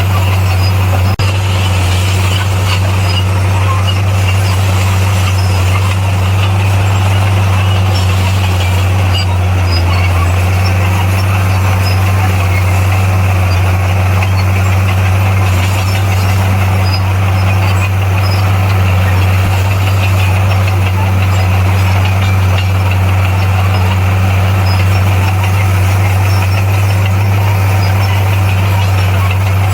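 Bulldozer's diesel engine running at a steady pitch, a constant low drone, with one short click about a second in.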